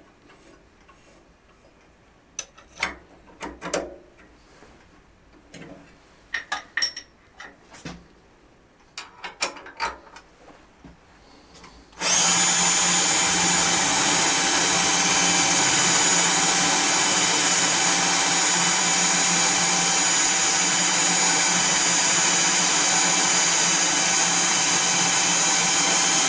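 Clicks and knocks as the lathe chuck is turned by hand and indexed on its dividing plate. About twelve seconds in, the toolpost spindle's motor starts suddenly and runs steadily with a high whine as its small cutter works into the end of the brass rod.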